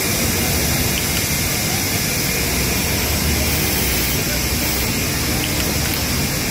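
Steady, unchanging din of machinery in a garment workshop, with faint voices in it.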